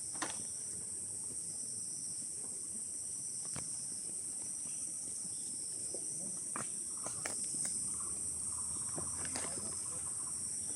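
Steady high-pitched shrilling of forest insects, with scattered footsteps on the trail and a brief rapid trill about nine seconds in.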